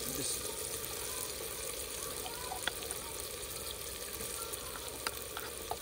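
Onions, tomatoes and freshly pounded ginger and garlic sizzling steadily in hot oil in a cooking pot, with a few sharp ticks.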